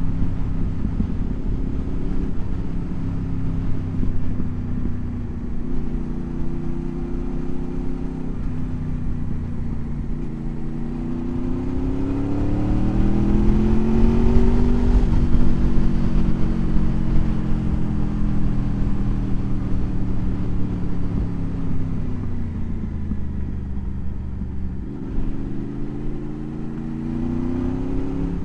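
Motorcycle engine under way, its pitch stepping and rising through the gears. About halfway it climbs to its highest and loudest, then slowly drops away, and near the end it rises again.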